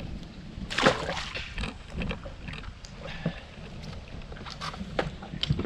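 Wind buffeting the microphone and water slapping against a boat's hull, with a loud sharp noisy burst about a second in and scattered short knocks.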